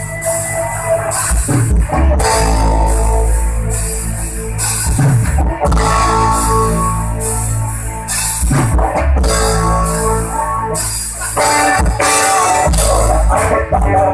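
A rock band playing an instrumental passage, with guitar, bass guitar and drum kit.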